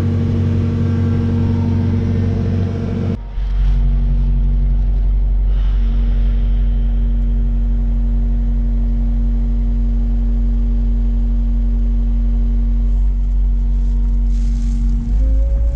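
Kubota KX compact excavator's diesel engine running steadily. About three seconds in its sound changes abruptly to a deeper, lower note, and near the end the pitch rises slightly.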